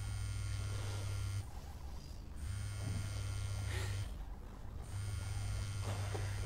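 Mobile phone set to vibrate buzzing against a wooden table with an incoming call: three buzzes of about a second and a half each, with short gaps between.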